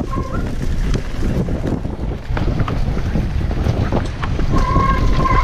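Wind buffeting a GoPro action camera's microphone as a mountain bike rolls fast down a dirt forest trail, with the rattle and knocks of the bike over the rough ground. A steady high squeal comes in near the end.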